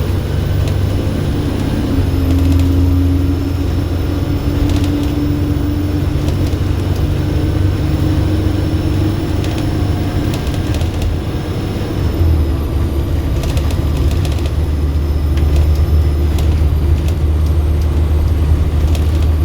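Volvo B7RLE bus's six-cylinder diesel engine running under way with a steady low drone, a high thin turbo whistle that drops in pitch about twelve seconds in, and scattered rattles and clicks.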